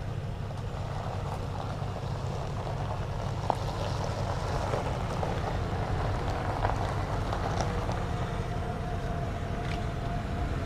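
1994 Ford F-150 pickup rolling slowly up a gravel driveway and pulling to a stop, its engine a steady low rumble that grows a little louder as it comes closer. Faint scattered crunches of tyres on gravel.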